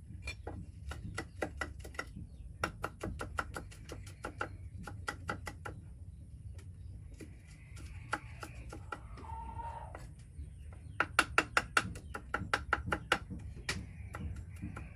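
A cleaver chopping garlic on a wooden chopping block, in quick runs of sharp knocks. The chopping stops for a few seconds in the middle, and the loudest, fastest run, several knocks a second, comes about eleven seconds in.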